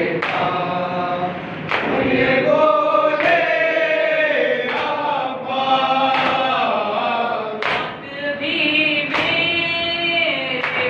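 A nauha, a Shia mourning lament, chanted by a lead voice with other voices joining in. The chant is kept in rhythm by matam, hand slaps on the chest about every one and a half seconds.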